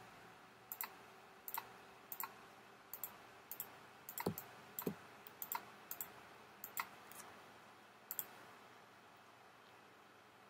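Faint computer mouse button clicks at an irregular pace, some in quick pairs. Each click sets another point of a polygonal lasso selection. The clicking stops about eight seconds in.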